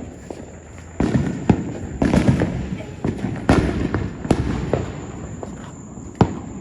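Consumer fireworks going off: a run of sharp bangs and crackles at uneven spacing, the busiest stretch from about one to five seconds in, with one more bang near the end.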